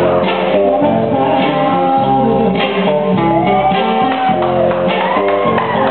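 A song with guitar playing for a dance in a large hall, steady throughout, with a few sliding tones that rise and fall over it about halfway through.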